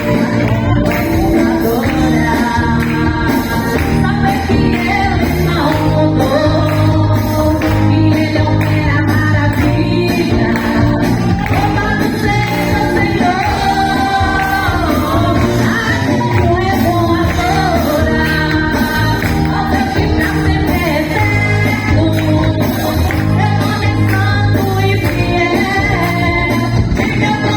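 Women's choir singing a gospel song over a full band accompaniment with bass and percussion.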